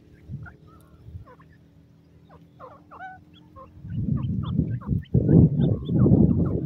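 Young francolin chicks peeping: many short, quick, upward-sliding chirps, thicker in the second half. From about four seconds in, a louder, rough low rumbling noise comes in under the peeps and stays to the end.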